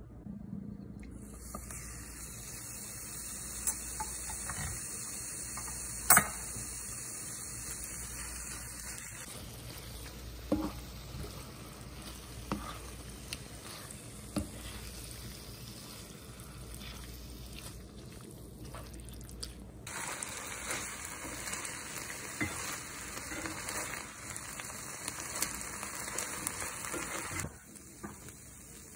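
Cubes of marinated chicken sizzling in hot oil in a nonstick frying pan, while a spatula stirs them and knocks against the pan now and then. The loudest knock comes about six seconds in. The sizzle changes abruptly in level a few times.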